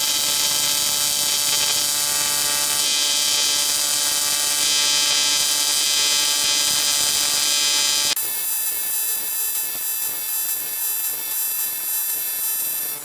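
AC TIG welding arc from a PrimeWeld TIG225x, buzzing steadily while laying a lap weld on aluminum. About eight seconds in the sound changes, the hiss easing while the buzz carries on.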